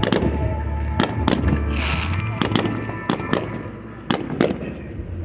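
Fireworks bursting in the air, a quick run of sharp bangs and crackles, thinning out past the middle with a few more reports near the end. Music with a steady deep bass plays under the first half.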